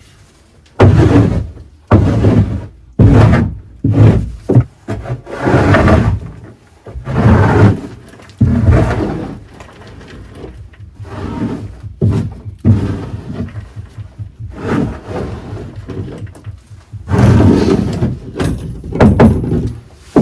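Homemade scraper pushing chicken droppings along a coop's poop board into a bucket: repeated scraping strokes, about one a second, quieter for a few seconds in the middle.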